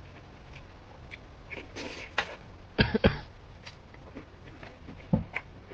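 A person coughing while eating spicy food: a sharp double cough about three seconds in and a shorter throat sound a little after five seconds, between small clicks of eating.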